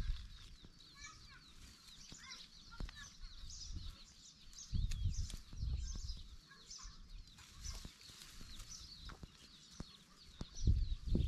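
Small birds chirping and twittering in quick, repeated high calls, with bursts of low rumble about five seconds in and again near the end.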